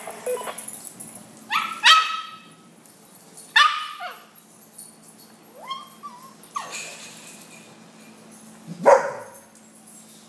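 Dogs barking: a handful of short, sharp barks a second or two apart, the loudest near the end.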